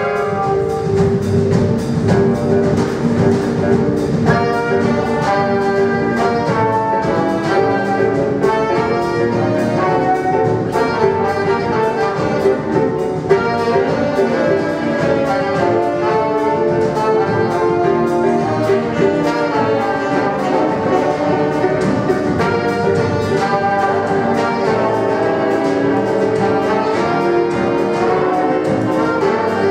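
Big band playing a jazz arrangement: saxophone, trombone and trumpet sections over piano, guitar, upright bass and drum kit, with steady cymbal strikes.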